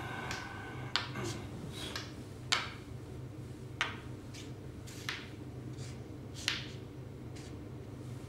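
Xiangqi pieces being set down one after another on the board, a sharp clack about every second and a half, five main ones with a few softer taps between, over a steady low hum.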